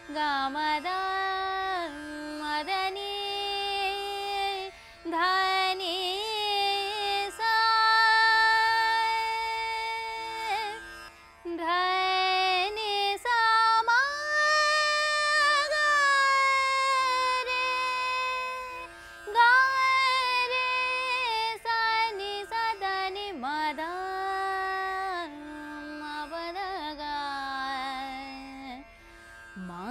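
Female Hindustani classical vocalist singing the chalan of Raag Bageshri without words: long held notes joined by slow glides. Underneath, a tanpura drone is plucked in a steady repeating cycle.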